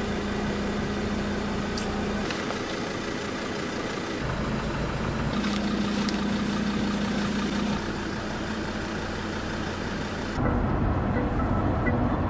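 Car engine and road noise heard inside the cabin: a steady drone whose pitch and loudness change abruptly several times.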